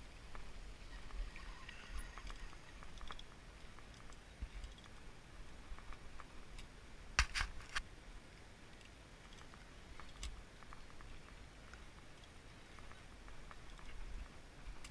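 Faint handling noise of a fishing rod being settled against a wooden railing: a quick cluster of three sharp knocks about seven seconds in, one more a few seconds later, and scattered small clicks over a low on-and-off rumble of wind on the microphone.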